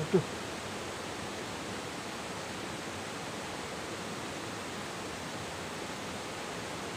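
Steady rushing of a muddy river flowing over and around boulders.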